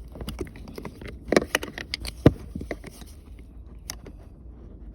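Plastic center console trim of a Chevy Sonic being worked by hand at its locking tabs: a run of irregular small clicks, taps and scrapes, with the sharpest click a little past two seconds in.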